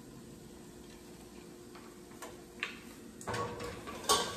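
Kitchen knife and wooden cutting board being handled after chopping onions: a few light clicks, then a louder clatter of knocks in the last second.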